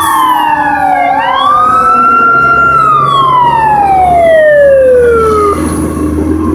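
Fire truck siren wailing: the pitch dips, rises quickly and holds high, then falls in a long slow glide and cuts off abruptly about five and a half seconds in. A low steady rumble runs underneath.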